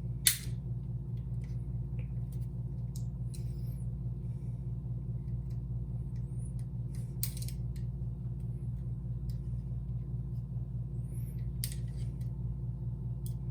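Scattered light clicks and taps of small metal door-latch parts being handled, the sharpest just after the start, over a steady low hum.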